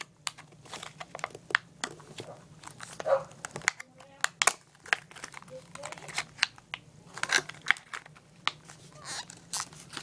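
Stiff clear plastic clamshell package being bent and torn open by hand, with irregular crackles, crinkles and sharp snaps.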